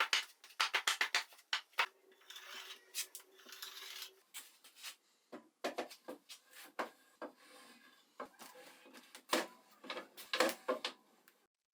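Hand work with tools and wood at a bench. A rapid run of light clicks and knocks comes first, then a brief hiss with a faint steady hum, then scattered knocks and clatter that bunch up again near the end.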